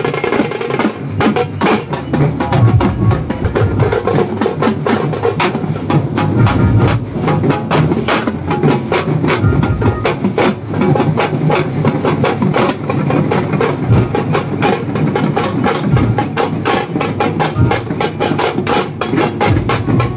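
Loud percussion-led music with fast, steady drumming.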